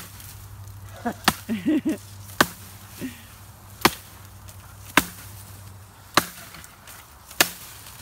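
Fiskars X15 chopping axe biting into a felled tree limb: about seven sharp chops, evenly spaced a little over a second apart.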